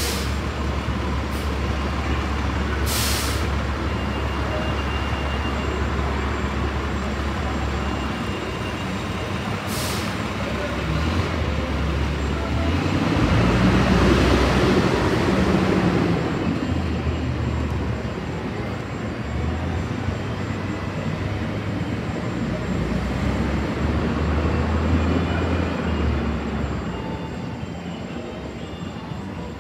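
Street traffic under an elevated rail line: a heavy vehicle's engine runs steadily, with two short air-brake hisses about three and ten seconds in. A vehicle passes, loudest about fourteen seconds in, then engines hum until it quietens slightly near the end.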